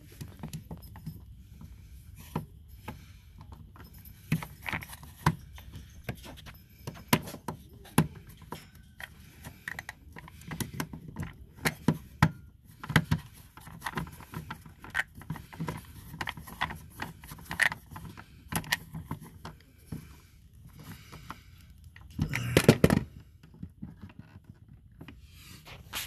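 Irregular clicks, taps and light rattles of wiring and metal and plastic parts being handled inside a travel trailer's power center, as the wires are routed for a replacement 12-volt converter. One louder, longer burst of noise comes about 22 seconds in.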